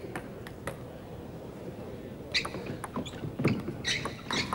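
Table tennis ball being hit and bouncing in a rally: a few sharp, short clicks in the second half over the low hum of a sports hall.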